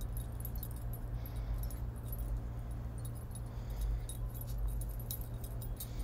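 Light metallic jingling: small metal pieces clinking together in irregular clusters of short, sharp clicks, over a steady low rumble.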